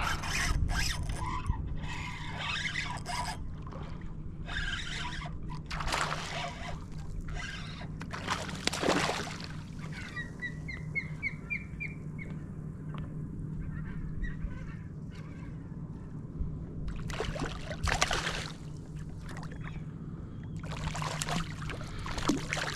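Splashing and handling noises as a hooked barracuda about 20 inches long is fought and unhooked beside a kayak, with bursts of water noise at the start and again near the end, over a steady low hum. About ten seconds in comes a quick run of short, high chirps, each rising in pitch.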